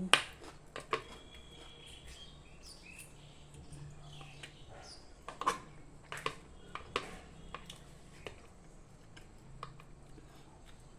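Scattered light knocks and clicks of kitchenware being handled, over a faint low hum.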